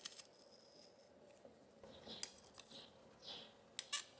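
Faint sounds of a metal garlic press crushing garlic cloves, with a few sharp metal clicks from its hinged handles near the end.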